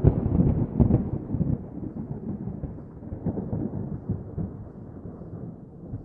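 A rumble of thunder with a few sharp crackles. It is loudest at the start and slowly dies away.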